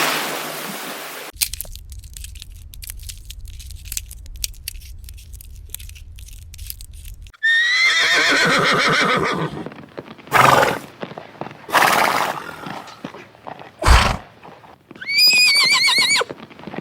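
A horse whinnying twice: a long quavering call about halfway in and a shorter one near the end, with a few short noisy blasts between them. Before that there are faint clicks over a low hum.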